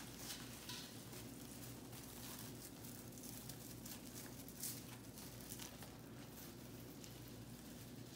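Faint, irregular rustling and crinkling of artificial garland, ribbon and decorative stems as they are handled and tucked in, over a steady low room hum.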